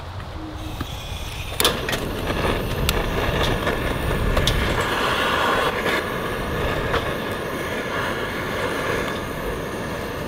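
Butane torch firing up with a sharp click about a second and a half in, then its jet flame hissing steadily as it lights a pile of kindling, with a few sharp clicks over it.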